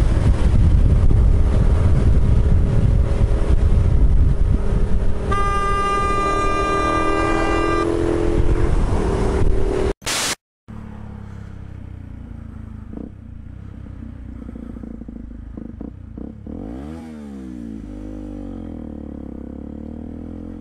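Wind and motorcycle engine noise from a moving bike, with a vehicle horn sounding for about three seconds about five seconds in. A short burst of static about ten seconds in. After it a dirt bike's engine runs, revving up and back down once near the end.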